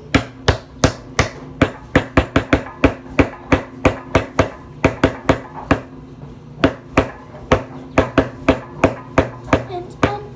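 A quick run of sharp knocks, about three a second, from a utensil striking a bowl as slime is mixed, over a faint low hum.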